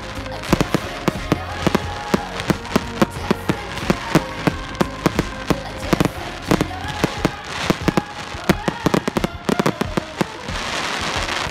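Aerial fireworks going off in quick succession: many sharp bangs and pops a second from bursting shells. About ten seconds in, a dense rush of crackling takes over as crackle effects fill the sky.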